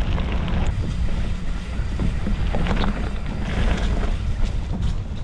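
Wind buffeting the microphone as a steady low rumble, with a few faint ticks and rattles over it.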